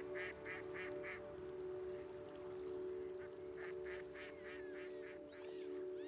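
Waterbirds calling: two quick runs of short nasal calls, about four a second, one at the start and one past the middle, with a few thin falling whistles near the end, over a soft sustained music drone.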